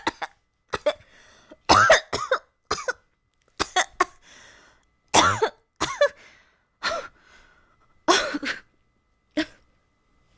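A girl coughing over and over: about a dozen short coughs, some single and some in quick pairs, with brief pauses between them. This is the cough of someone sick with a cold, which the others put down to a fever.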